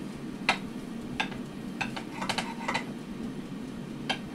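Kitchen knife cutting through filled brioche rolls on a plate, the blade clicking against the plate about six times at irregular intervals.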